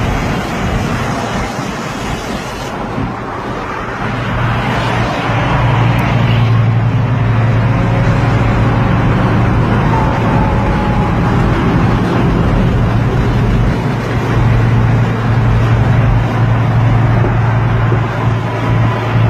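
Road and engine noise heard from inside a moving car's cabin at highway speed. A steady low drone comes in and grows louder about four seconds in.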